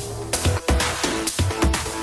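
Background electronic music with a fast, steady drum beat and a deep bass.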